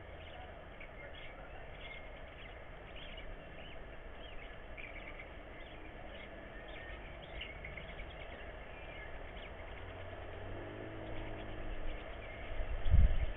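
Outdoor nest-cam sound: many short, scattered bird chirps over a steady low hum. Near the end a low rumble builds, topped by a single loud low thump shortly before the end.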